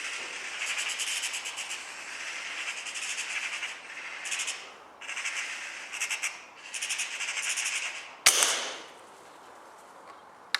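Birds chattering in fast, high rattling runs that stop and start, then a single sharp shot from a .22 BSA Superten air rifle about eight seconds in, the loudest sound, dying away quickly.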